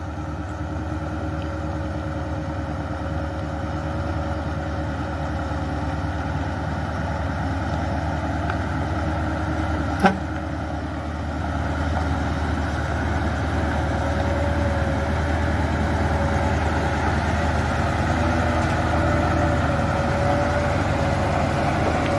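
Diesel engine of a heavily loaded Mitsubishi Fuso Super Great truck running steadily at low speed, growing louder as the truck draws near and passes close. A single sharp click about ten seconds in.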